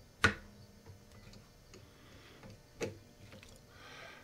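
Screwdriver working the small ejector screw in the steel receiver of a Mossberg 500-pattern shotgun: two sharp metallic clicks, one just after the start and one about three seconds in, with a few faint ticks and a brief soft scraping shortly before the end.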